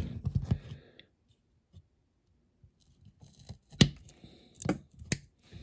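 Side cutters snipping off a protruding piece on a model car's base, three sharp snips in the second half.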